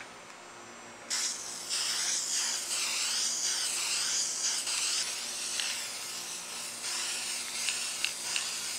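Aerosol spray paint can spraying red paint in a long steady hiss that starts about a second in, wavering as the can is swept back and forth over the emblem.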